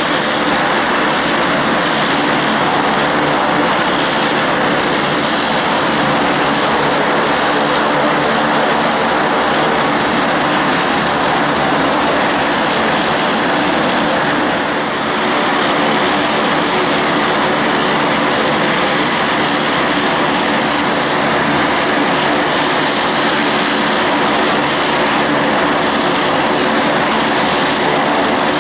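Aircraft engines running steadily at close range: a loud, even drone with a steady hum of engine tones under it, holding level throughout with only a slight dip about halfway.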